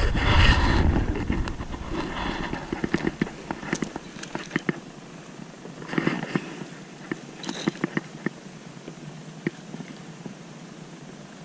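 Scattered sharp clicks and knocks of fishing gear being handled on a plastic kayak, with rustling of the landing net near the start and again about six seconds in.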